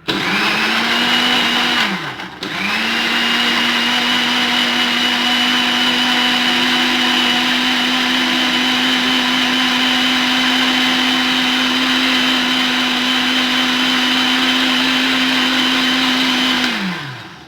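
Moulinex countertop blender blending lemon juice, grated lemon zest, sugar and peeled apple. The motor runs briefly, winds down with a falling pitch after about two seconds, then starts again and runs steadily until it winds down near the end.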